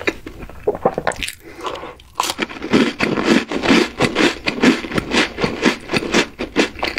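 Chewing a mouthful of chocolate: a few separate mouth clicks, then from about two seconds in, fast, continuous wet chewing.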